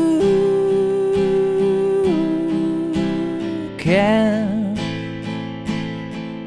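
A man singing long held notes over a steadily strummed acoustic guitar. His pitch steps down about two seconds in, and a new wavering phrase begins near the four-second mark.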